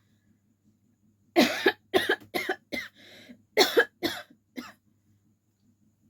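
A person coughing repeatedly in two short fits of several coughs each, the loudest cough opening each fit.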